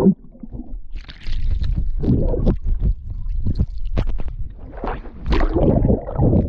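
Water heard through a camera microphone submerged in a swimming pool: muffled rumbling and gurgling of bubbles and moving water, with irregular knocks as the camera is jostled.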